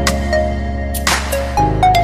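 Electronic background music with a held bass line, a melody of short notes and a drum beat.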